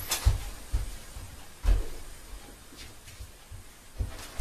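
Handling noise from a handheld phone pressed against a car window: irregular low thumps and knocks, the loudest about a second and a half in, over a faint hiss.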